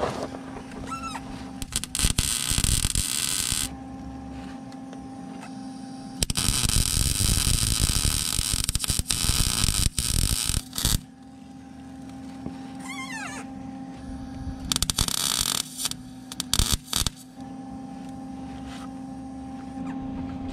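Arc welder laying beads on steel spring perches: three crackling welding bursts of a few seconds each, the longest about five seconds, with a steady electrical hum between them.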